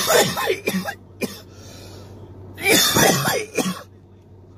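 A man coughing hard in two fits about two seconds apart, each a run of several rough coughs.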